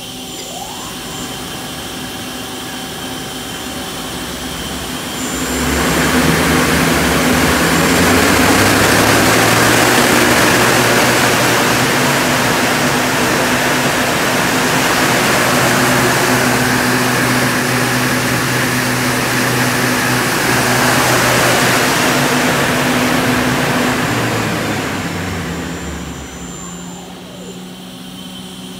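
Mazak Quick Turn Nexus 350-II turning center's main spindle turning its 15-inch Kitagawa three-jaw chuck: it speeds up about five seconds in, runs at speed with a steady hum and a rushing noise, then winds down near the end.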